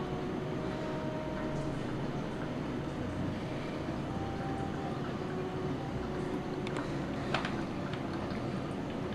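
A steady low rumbling drone with a few faint held tones, broken by a short cluster of clicks about seven seconds in.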